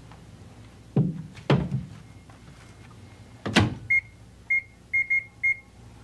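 Microwave oven being loaded and set: a couple of knocks, then the door shutting with a thump a little past halfway. Five short high beeps follow from the touch keypad as the high power and cooking time are keyed in.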